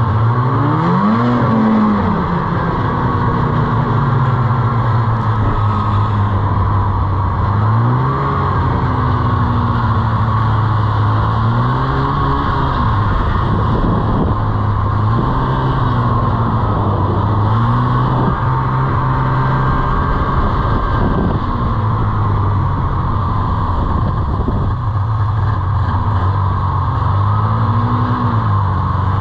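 Snowmobile engine running under way, its pitch dipping and climbing again several times as the throttle is eased and reopened.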